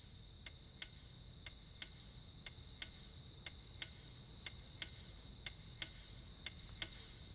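Faint background of a cricket's steady high trill, with a clock ticking evenly about three times a second.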